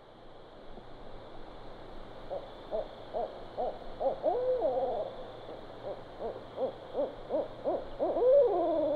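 An owl hooting: two runs of quick, evenly spaced hoots, each run ending in a longer, drawn-out falling hoot.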